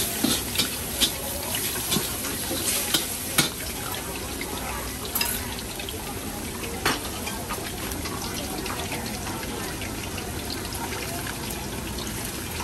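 Busy market ambience: a steady wash of noise, like running water or frying, with sharp clinks and knocks, most of them in the first three and a half seconds.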